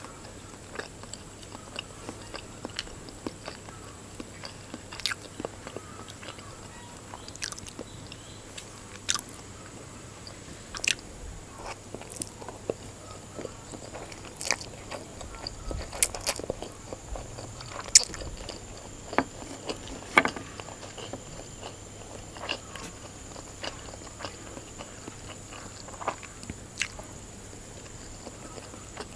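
Close-up sounds of a person eating instant noodles: chewing and biting with wet smacks and short sharp clicks scattered throughout, a few louder ones past the middle.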